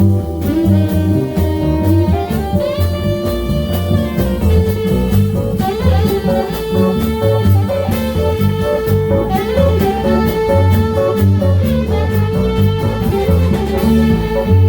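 A small jazz band playing a jazz standard: saxophone on held melody notes over guitar, keyboard, bass and a drum kit keeping time on the cymbals.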